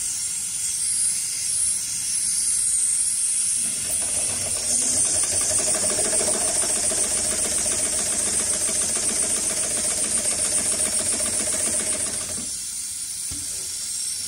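HighTex heavy-duty walking-foot industrial sewing machine stitching thick polyester webbing: a rapid, even mechanical rhythm with a steady hum. It starts about four seconds in and stops about two seconds before the end, over a steady high hiss.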